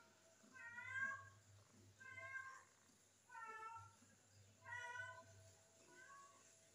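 Newborn kittens mewing: about five short, high-pitched cries, roughly one every second and a half, the last one fainter.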